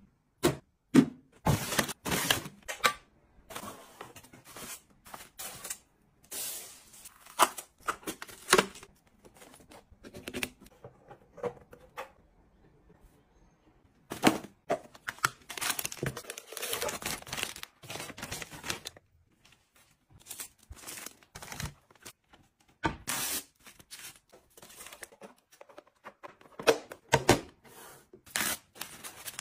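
Close-up handling sounds: irregular taps and clicks with bursts of rustling and crinkling packaging, with a short quiet pause midway.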